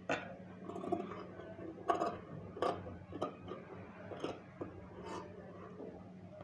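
Scissors cutting cloth: irregular sharp snips of the blades, roughly one a second, over a steady low hum.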